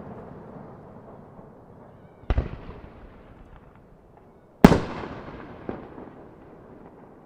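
Aerial firework shells bursting about 200 m away: a bang about two seconds in, the loudest bang about four and a half seconds in, and a smaller one near six seconds. Each is followed by a rolling echo that dies away.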